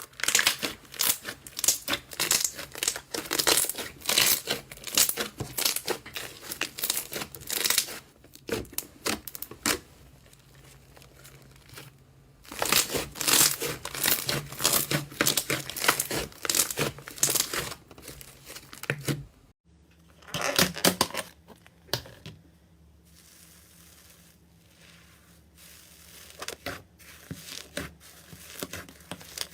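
Slime being squished and stretched by hand, giving dense crackling and popping clicks in two long runs. It pauses briefly in between, then after an abrupt break turns to sparser, softer clicks.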